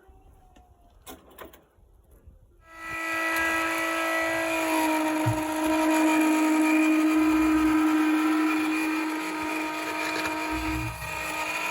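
A few light clicks, then an electric power tool motor starts about three seconds in and runs with a steady whine. Its pitch drops slightly a couple of seconds later and briefly dips near the end.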